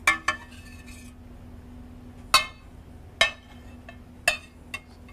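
Sharp, irregular clinks of a metal sauté pan and utensil against a china serving plate, about six in all, while sauce is poured out of the pan. A faint steady hum runs underneath.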